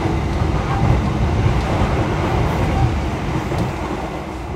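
Running noise of the Argo Cheribon passenger train heard inside its carriage: a steady rumble of wheels and bogies on the rails.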